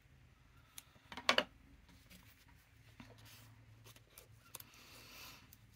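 Small crafting sounds: a short, sharp sound from a pair of scissors about a second in, then soft rustling and light ticks as fabric and lace scraps are handled and arranged on paper.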